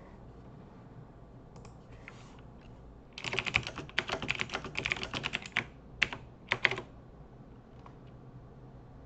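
Typing on a computer keyboard: a few faint key clicks, then a quick run of keystrokes starting about three seconds in and lasting about three and a half seconds, ending with a couple of louder key presses.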